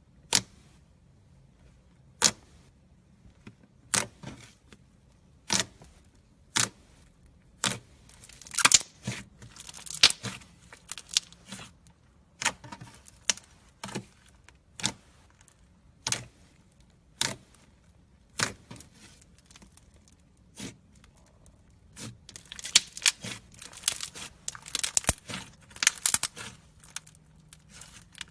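Slime being handled: a sharp click about every second and a half, with denser stretches of crackling about a third of the way in and again near the end.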